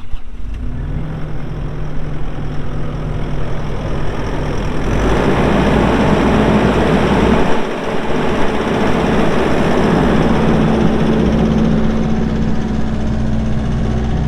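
Kubota SVL65-2 compact track loader's diesel engine starting and running. It rises to higher revs and grows louder about five seconds in, then holds steady.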